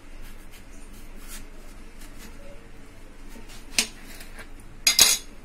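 Kitchen knife lightly scoring a watermelon's rind, with faint scraping ticks, then a sharp click a little under four seconds in and a louder short cluster of clicks and knocks about five seconds in.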